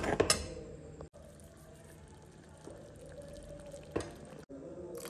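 Steel ladle scraping and clinking against a pan of curry paste in the first moments, then a faint stretch with a little bubbling of the simmering curry and a single click about four seconds in.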